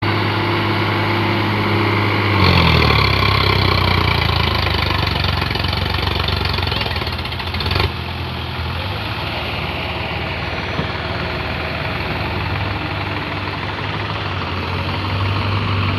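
Sonalika 4x4 tractor's diesel engine running. About two and a half seconds in, its note drops and it turns louder and rougher, as if labouring under load. Near the middle this stops with a short burst and the engine settles back to a steady run.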